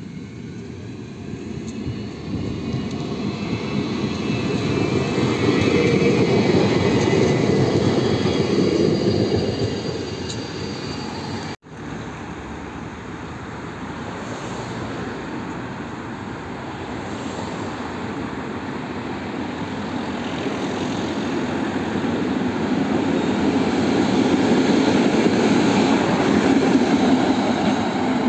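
Old high-floor Konstal 105N-family trams passing on street track. The first rumbles closer over the rails with a faint rising motor whine and fades away. After a sudden cut, a coupled pair draws near amid street traffic and is loudest near the end.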